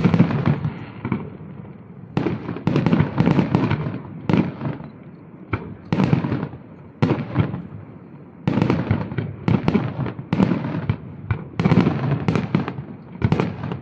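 Aerial firework shells bursting: an irregular series of loud bangs, about two dozen, coming in quick runs with brief gaps, each fading away over a fraction of a second.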